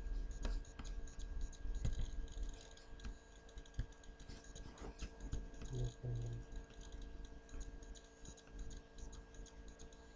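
Scattered computer mouse clicks and a few key taps, over a steady low electrical hum.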